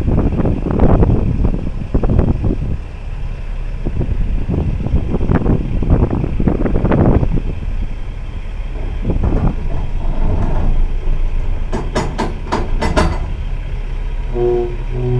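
Heavy vehicle rumbling, its noise surging and easing, with a quick run of about five sharp clicks near the end and then a horn sounding a chord of several tones just before the end.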